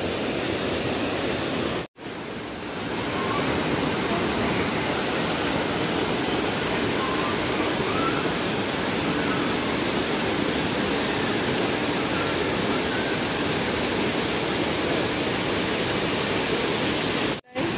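Steady rush of falling water from a waterfall and a small cascade pouring over rocks. It cuts out briefly about two seconds in and again near the end.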